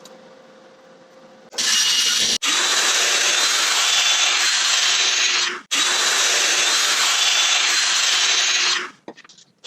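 A power tool working plywood. It starts about a second and a half in, runs steadily with two short sharp breaks, and stops shortly before the end, leaving a few small clicks.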